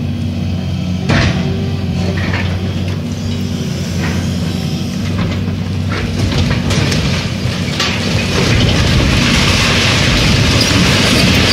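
Demolition excavator's diesel engine running steadily while its grab breaks into a concrete building, with several sharp cracks and crashes of concrete giving way. About three-quarters of the way in, a continuous rushing clatter of rubble and debris pouring down takes over.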